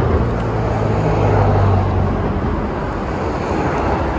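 Steady road-traffic and engine noise, with a low motor hum that swells slightly in the first couple of seconds.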